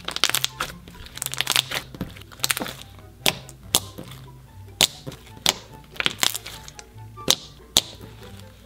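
Thick, glossy slime being pressed, folded and poked by hand, giving irregular sharp pops and clicks as air pockets burst, about one or two a second, over soft background music.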